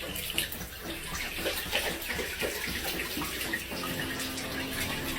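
Steady running water, like a tap or bathtub filling.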